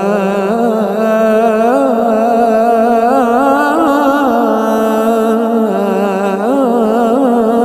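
Adhan (Islamic call to prayer) sung by a single male muezzin, holding long, ornamented, wavering notes, with a short break about six seconds in.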